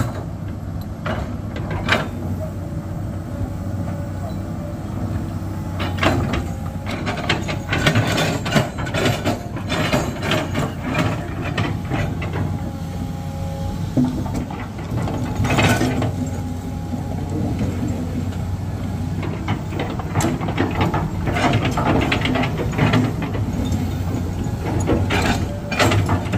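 A heavy engine running steadily at a low hum, with repeated metallic knocks and clatter over it, thickest in the second half. A brief thin whine comes in twice along the way.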